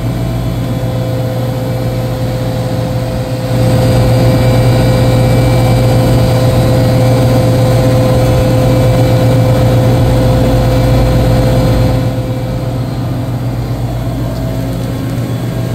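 Refrigeration machinery running: a steady low hum with a steady whine above it, louder through the middle part.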